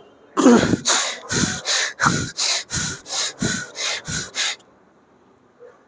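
A man breathing hard and fast through his mouth, about a dozen sharp, forceful breaths in quick succession, from the strain of a heavy dumbbell press set. The breathing stops abruptly near the end.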